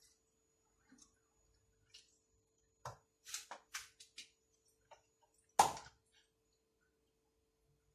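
Kitchen knife cutting raw chicken on a wooden cutting board: scattered soft taps and scrapes of the blade, a quick run of several strokes about three seconds in, then one sharp knock, the loudest, shortly after.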